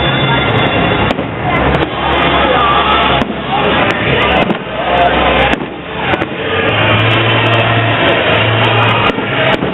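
Fireworks display going off, with bangs and crackles mixed into loud continuous music.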